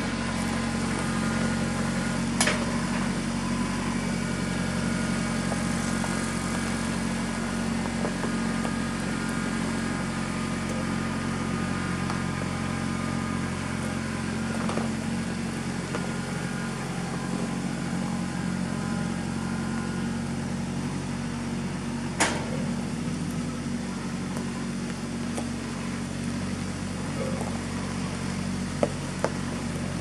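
Kubota compact tractor's diesel engine running steadily at an even speed, with a sharp knock about two seconds in and another near the 22-second mark.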